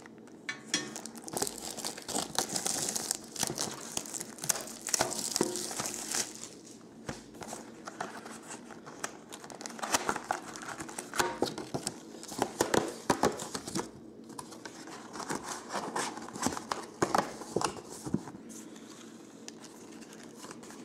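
Plastic shrink wrap crinkling and tearing as it is peeled off a cardboard trading-card box, with rustling and scraping as the cardboard lid is opened and folded back. The crackling is densest in the first few seconds and comes in irregular handfuls afterwards.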